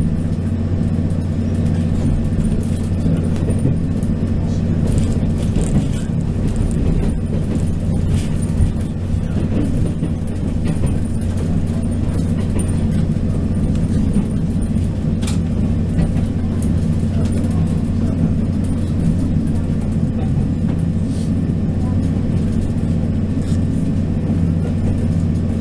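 The inside of a Taiwan Railway DR2900/3000-series diesel railcar under way: a steady low drone from its diesel engines under running noise from the wheels and track, with a few sharp clicks and knocks.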